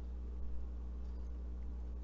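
Steady low electrical hum with a quiet room background, and one faint tap about half a second in.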